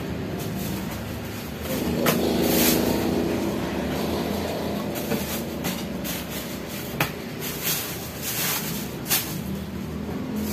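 Hands rustling plastic wrapping and pushing cardboard pieces into a cardboard box, with a few sharp crinkles and knocks, over a steady low hum.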